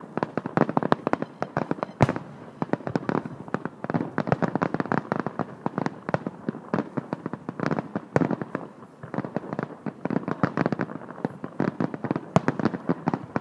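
Fireworks display going off: a dense, continuous crackle of pops and bangs, with a louder bang about two seconds in.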